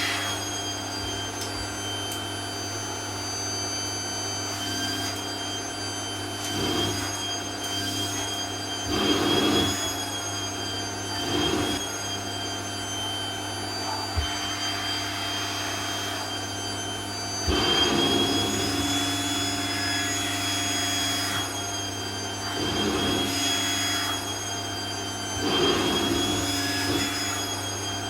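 Vacuum cleaner running steadily with a high motor whine and a low hum. The noise swells briefly every few seconds as it is worked over dress fabric.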